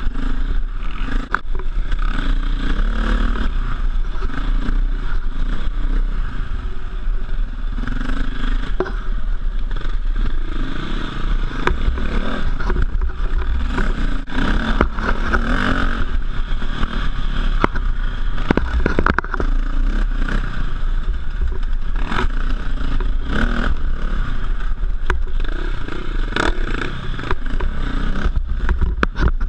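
KTM 450 EXC single-cylinder four-stroke dirt bike engine running on a rough trail, the revs rising and falling with the throttle. Frequent knocks and clatter from the bike going over rough ground.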